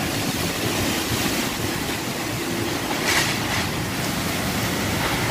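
Typhoon wind and heavy rain lashing trees: a dense, steady rushing noise, with a brief louder hiss about three seconds in.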